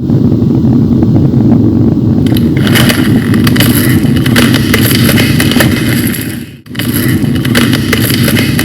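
Loud, deep earthquake rumble with dense crackling and clattering over it from about two seconds in, breaking off for an instant a little after six seconds.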